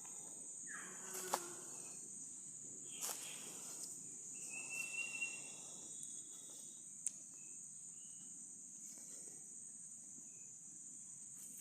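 Steady high-pitched chorus of insects, with a few sharp clicks and a brief whistled note in the middle.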